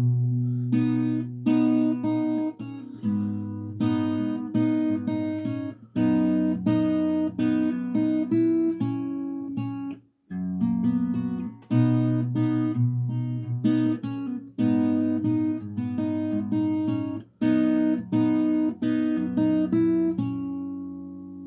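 Acoustic guitar played fingerstyle, chord-melody style: plucked treble notes over ringing low bass notes, with a brief break about halfway through and a last chord left ringing out near the end.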